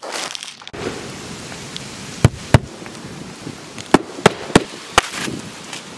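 Claw hammer driving roofing nails through asphalt shingles: six sharp strikes, two about two seconds in, then four more in quicker succession about a second and a half later, over a steady background hiss.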